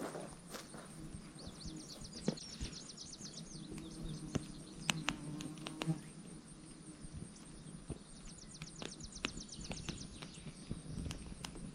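An insect's rapid pulsing trill, twice, each lasting about two seconds, over scattered sharp clicks and knocks.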